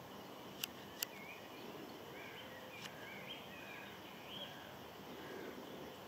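Faint outdoor ambience with a low steady background noise. Two sharp clicks come about half a second apart near the start, then a string of faint short bird chirps from about two seconds in.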